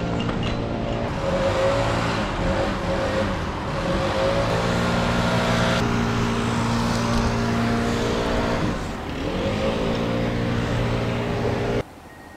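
Engine running hard at high revs, its pitch sagging briefly and recovering about three quarters of the way through, then cutting off abruptly near the end.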